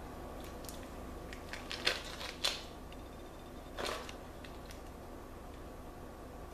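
A knife cutting a foil-wrapped block of cream cheese: a few sharp crinkles and clicks of the foil about two seconds in, and a shorter rustle near four seconds.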